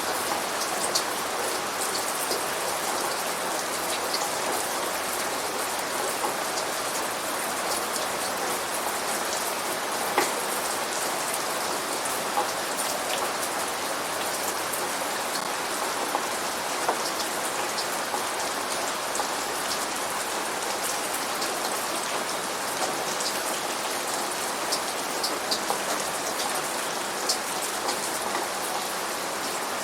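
Steady rain falling, with individual drops pattering and ticking on a hard surface over an even hiss.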